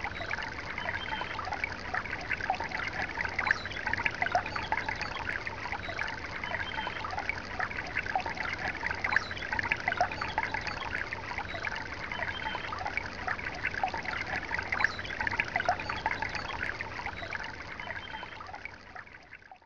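Steady trickling, bubbling water made of many small droplet blips, fading out over the last two seconds.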